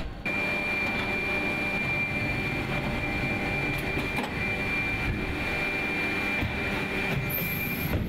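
Warship's machinery and ventilation running: a steady mechanical hum and noise with a constant high-pitched whine that starts just after the beginning and cuts off shortly before the end.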